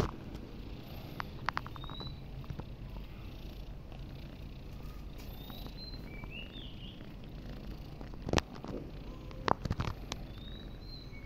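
Domestic cat purring steadily close up, with a few sharp taps about three-quarters of the way through.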